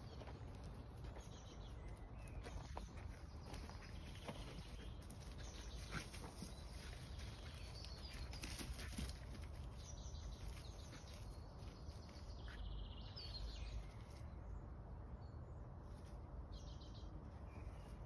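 Outdoor woodland ambience: a low steady rumble, with short snatches of distant birdsong every few seconds and a few faint clicks.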